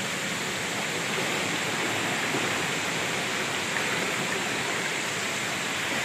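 Steady rush of water running among the boulders of a rocky stream, a little louder from about a second in.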